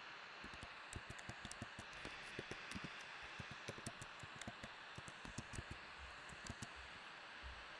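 Typing on a computer keyboard: a quick, irregular run of light key clicks that stops about a second before the end, over a faint steady hiss.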